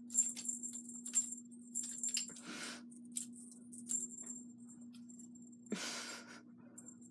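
A small bell on a dangling cat toy jingling in quick irregular bursts as kittens bat at it. Two brief rustling scuffles come about two and a half and six seconds in, over a low steady hum.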